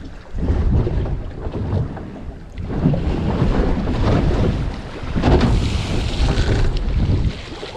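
Wind buffeting the microphone over the rush of sea water along the hull of a small fishing boat under way, with a louder hissing surge about five seconds in.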